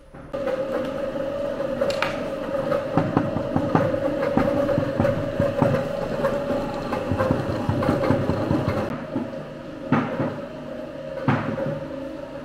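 A machine running with a steady hum over continuous rattling and clattering, with a few sharp knocks about 2, 10 and 11 seconds in.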